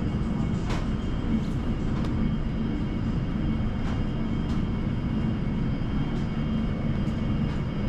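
Steady low rumble of indoor store ambience, with a few faint scattered clicks and ticks.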